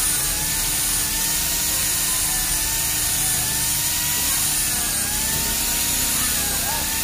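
Electric angle grinder cutting into a metal rod: a steady high hiss of the disc on metal over the motor's whine, whose pitch dips slightly a few times as the disc bites.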